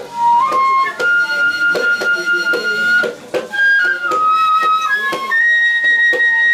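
Japanese bamboo transverse flute (shinobue) playing a slow melody of long held notes that step up and down in pitch, one note held for about two seconds. A hand-played rope-tensioned drum beats steadily underneath.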